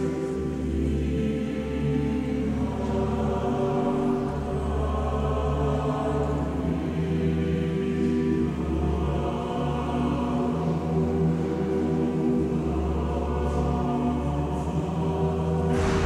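A choir singing slow, sustained chords in a large stone cathedral, each chord held for a few seconds before moving to the next.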